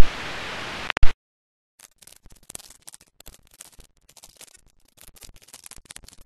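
A steady hiss that cuts off with a sharp, loud click about a second in, followed by faint, irregular clicking and crackling.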